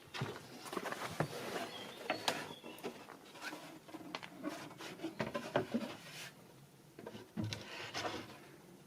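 A small handmade wooden drawer slid in and out of its cupboard opening, with irregular wooden knocks and scraping rubs against the frame. The drawer has just been planed down because it was catching on the edge.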